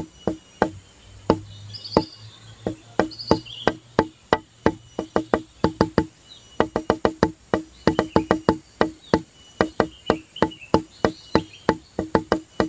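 Background music made of a quick wood-block-like knocking pattern, about five knocks a second with short breaks, with scattered high chirps over it.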